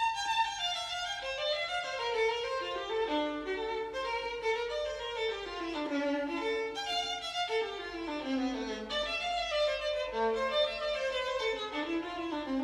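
Violin music: a solo melodic line moving from note to note, with falling runs about halfway through.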